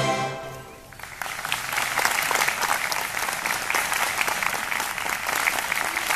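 A band's last held chord dies away, and about a second in a large outdoor audience breaks into applause that carries on steadily.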